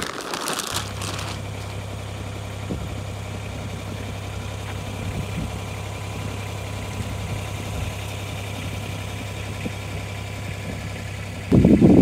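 Steady low engine hum, like a vehicle idling. Near the end it gives way to loud wind buffeting the microphone.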